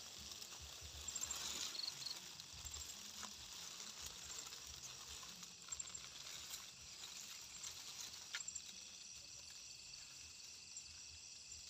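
Night insects chirring steadily in a grassy field: a faint, high, continuous chorus with short trills now and then. Grass stalks rustle faintly, with a few soft ticks, as the grass is pushed aside.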